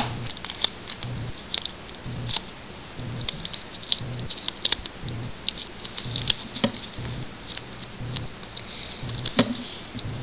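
Hands working with sticky tape and cardboard close to the microphone: scattered small crinkles, clicks and taps, a few sharper ones near the end.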